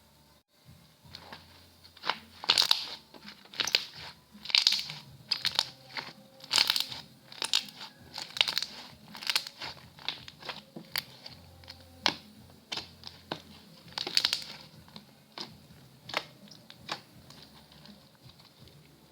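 Slime being squeezed and pressed by hand, giving a string of short, sharp clicks and pops at an uneven pace of about one or two a second, which die away near the end.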